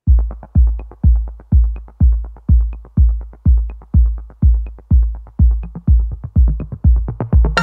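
Background electronic music with a steady drum-machine kick about twice a second and light ticking beats between.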